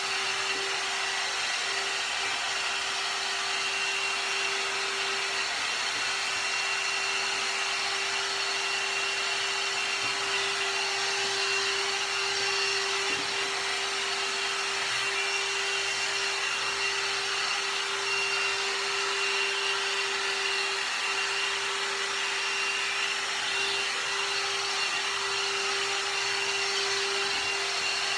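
One Step hot-air brush dryer-styler running steadily on its high setting: a loud rush of air with a steady motor whine.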